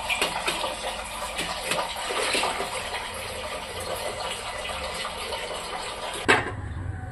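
Thin batter and rinse water pouring and splashing from a steel mixer jar into a steel pot, with small knocks of metal. A sharp knock comes about six seconds in, and the splashing stops.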